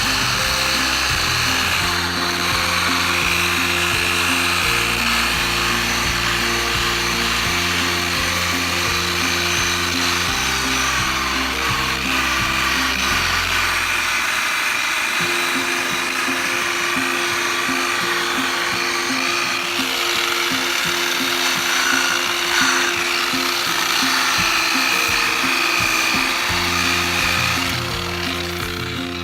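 Background music with a bass line that changes note every few seconds, over a power tool running steadily underneath, likely driving a polishing pad on the headlamp lens.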